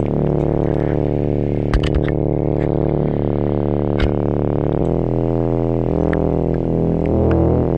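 Background music: sustained low synthesizer chords that shift every second or two, with a few sharp percussive clicks.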